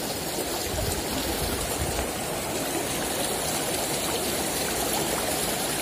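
Small shallow river flowing steadily, an even rush of water over stones with no break or change.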